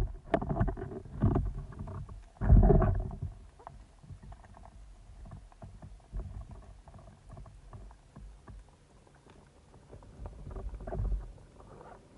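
Heard underwater: knocks and rumbling water noise from the band speargun, shaft and line being handled against the rocky bottom just after a shot at an octopus, loudest about two and a half seconds in. Then quieter water noise with scattered faint clicks as the diver rises, swelling again near the end.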